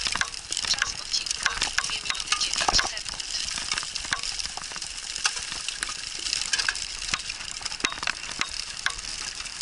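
Bike tyres rolling fast over a dirt trail covered in dry leaves: a steady crackling hiss scattered with many small clicks.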